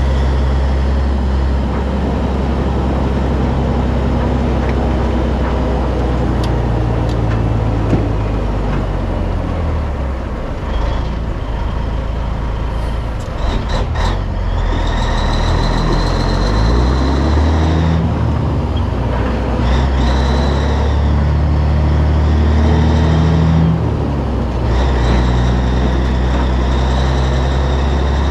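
Peterbilt 362 cabover's Caterpillar 3406B diesel pulling a lowboy trailer at low speed, its engine note dropping and climbing again several times through gear changes. A high whine rides over the engine from about halfway through, and there are a few sharp clicks just before it starts.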